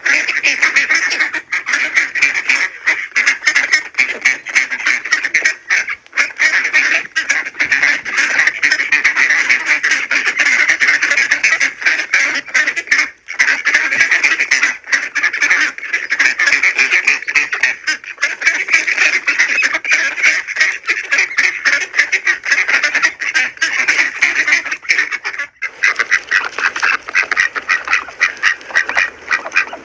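A flock of domestic ducks quacking continuously in a dense, overlapping chorus of short, loud calls, with brief breaks about 13 and 25 seconds in.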